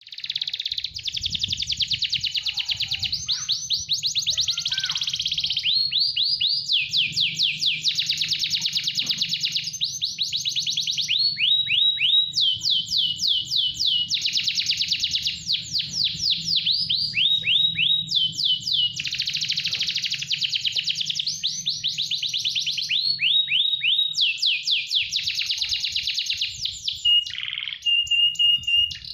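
Domestic canary in full song: one long, almost unbroken song of rapid trills, each a fast run of repeated high notes, switching to a new trill every second or two.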